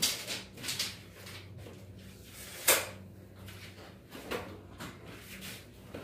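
Clicks and clatters of hand work: a steel tape measure let go and retracting near the start, then one sharp knock about two and a half seconds in and a lighter one a little past four seconds. A low steady hum runs underneath.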